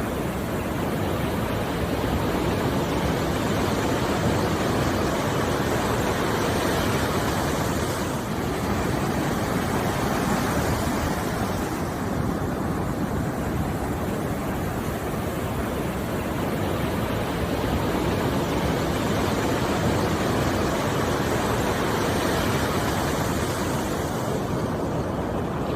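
Steady rushing noise, like surf or falling water, that swells and eases slowly every few seconds.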